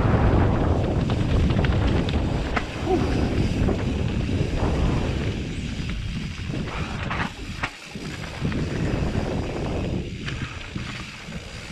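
Wind rushing over the microphone and mountain bike tyres rolling over a dirt trail, with the bike rattling over bumps and a few sharp knocks from roots and stones. The noise is loudest at first and eases off partway through.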